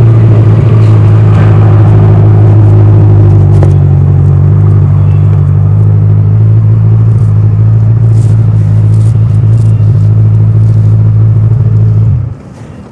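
Kawasaki Ninja 1000's stock-exhaust inline-four engine running steadily at an even pitch, then cutting off sharply about twelve seconds in as the engine is switched off.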